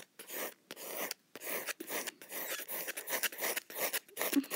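Pencil scratching on paper in quick repeated sketching strokes, about three a second.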